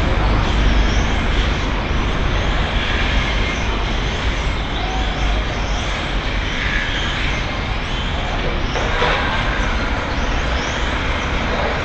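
Electric on-road RC cars lapping a track, their motors whining up and down in short rising and falling sweeps as they accelerate and brake, over a steady low rumble.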